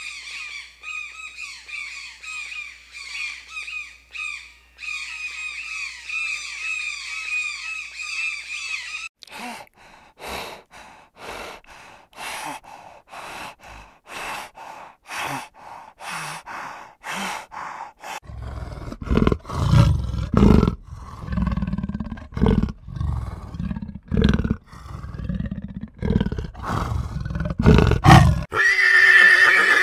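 A run of different animal calls. First comes a long stretch of rapid, repeated high calls, then a string of short sharp calls. Loud deep calls follow for about ten seconds, and a pony whinnies near the end.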